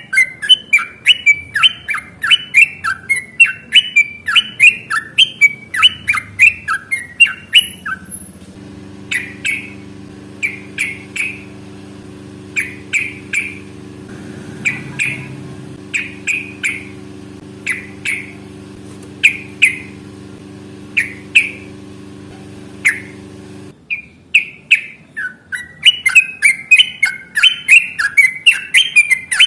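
Yellow-vented bulbul (trucukan) singing: fast bubbling runs of short sweeping notes, about four a second. They thin out to single notes every second or so for about fifteen seconds in the middle, over a low steady hum, then speed up again near the end.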